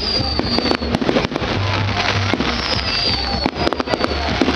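Fireworks going off in a dense, continuous crackle of bangs and pops, with a few high whistles falling in pitch, over fairground music with a pulsing bass.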